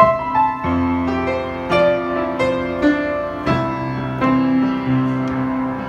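Background music led by piano, with notes and chords struck at an unhurried pace and held.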